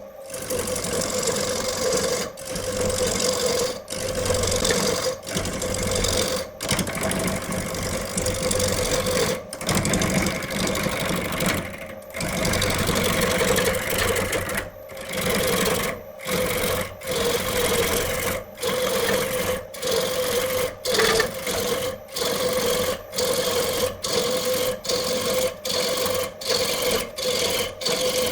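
A power tool runs with a steady hum while a tool rasps against wood. The sound is chopped into short pieces by brief dropouts, and the pieces get shorter and more frequent toward the end.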